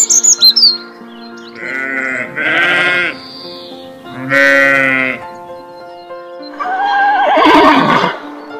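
A bird chirps at the start, then sheep bleat twice, then a horse whinnies about seven seconds in. Background music with steady held notes runs underneath.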